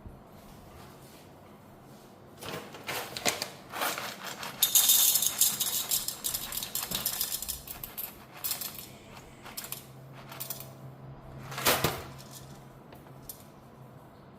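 Whole roasted coffee beans poured and rattling into a small dosing cup, in short pours of clicks with a denser clatter about five seconds in, and a sharp knock near the end, while a 20-gram dose is weighed out.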